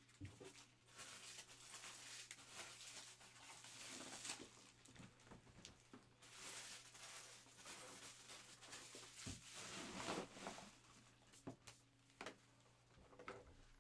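Faint rustling and shuffling of things being handled, with a few light clicks and knocks, over a low steady hum.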